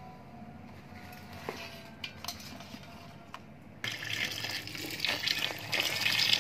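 A few light knocks in an empty steel pot, then, nearly four seconds in, a stream of water starts splashing into the pot over woven palm-leaf ketupat cases, filling it to boil them.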